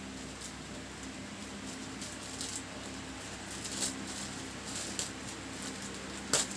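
Scattered light clicks and scratches of small hard parts being handled on a laptop, with one sharper click near the end, over a faint steady hum.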